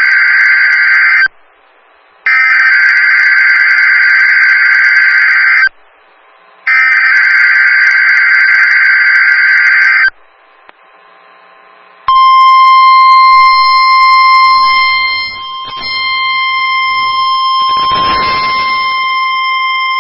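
NOAA Weather Radio Required Weekly Test signal. The end of one warbling SAME digital header burst is followed by two more full bursts of about three and a half seconds each, a second apart; these are the encoded test alert data. About two seconds later, the steady warning alarm tone starts and holds to the end.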